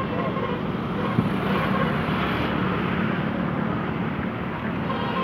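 Steady running of bus engines across a bus stand yard, with a constant low hum and general traffic noise.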